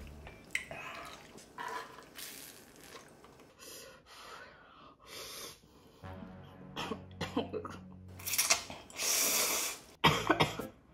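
Close-miked eating sounds of Samyang Buldak spicy stir-fried noodles being slurped up with chopsticks. There are several slurps, with one long loud slurp about eight seconds in, over light background music.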